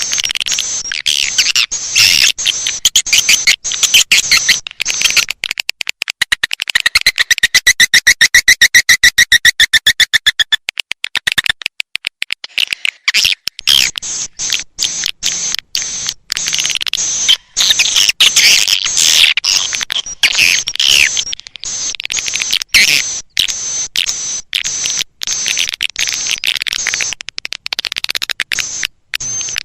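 Swiftlet lure recording: dense, rapid chirping and twittering swiftlet calls, the sound played to draw swiftlets into a nesting house. From about six to eleven seconds in, the calls give way to a very fast, even run of clicks.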